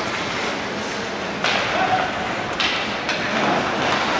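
Ice hockey play on a rink: skate blades scraping and carving the ice in sudden swells about one and a half and two and a half seconds in, with thuds from the puck and sticks.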